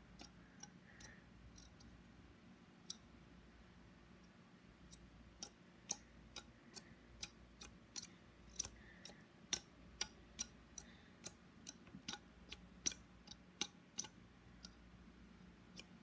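Light, irregular clicks and ticks, one to three a second and denser in the second half, from a small plastic PC case fan being handled and turned in the hands. A faint steady hum lies beneath.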